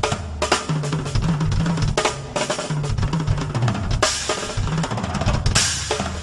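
Live drum kit solo: fast, dense strokes on drums with cymbal crashes about four seconds in and again near the end.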